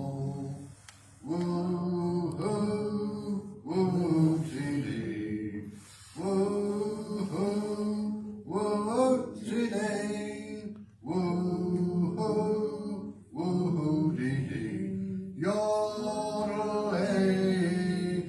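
A man singing a wordless cowboy yodel refrain ('woo-hoo, woo-tee-dee') in a series of long held phrases, with short breaks between them.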